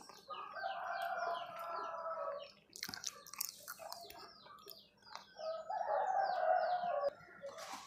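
Chickens calling, with two long drawn-out calls of about two seconds each, one near the start and one in the second half. Small birds chirp in quick repeated notes throughout, and a brief rustle comes about three seconds in.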